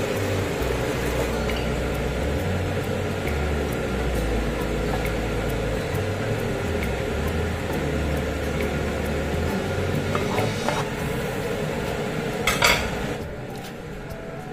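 Thick sauce sizzling in a nonstick wok while a wooden spatula stirs and scrapes chicken and potatoes. About twelve seconds in there is a louder scrape and clatter as the food is pushed off the tilted wok onto a plate, and the sound gets quieter after that.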